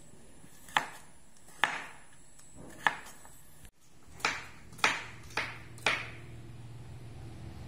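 Cleaver chopping pumpkin on a wooden cutting board: three sharp chops about a second apart, then, after a brief dropout, four more chops about half a second apart.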